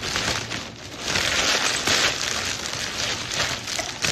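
Plastic mailer bag and the plastic-wrapped contents crinkling and rustling as the package is torn open and emptied, loudest for about a second and a half starting about a second in.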